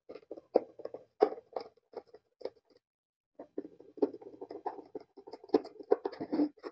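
Hand screwdriver driving small screws into a plywood cover: an irregular scratchy grinding and clicking as the screws bite into the wood, stopping briefly about three seconds in.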